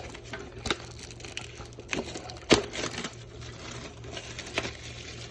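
Scissors snipping at the packaging of a metal card tin, a run of scattered sharp clicks, the loudest about two and a half seconds in.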